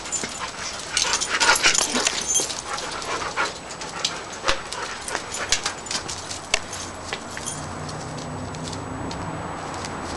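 German Shorthaired Pointer moving about close by, its sounds mixed with scattered sharp clicks and rustles that are densest in the first few seconds; a low steady hum comes in near the end.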